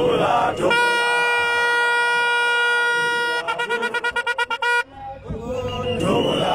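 A horn sounds one steady blast of about two and a half seconds, then a fast run of short toots, about seven a second, and cuts off. A crowd chants around it.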